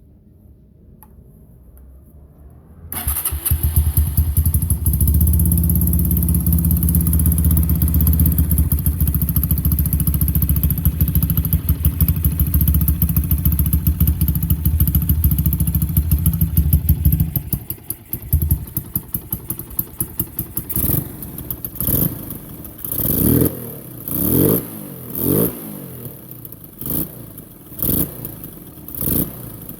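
Honda Tiger motorcycle's single-cylinder four-stroke engine, bored up to 212 cc, starting about three seconds in and then idling steadily. About fifteen seconds later the steady running drops away, and the engine is revved in a string of short throttle blips, about one a second, each rising and falling in pitch.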